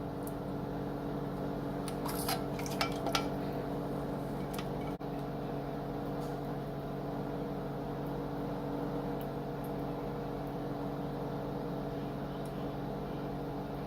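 A steady electrical hum from a kitchen appliance, with a few light clinks of a utensil against a can or bowl about two to three seconds in.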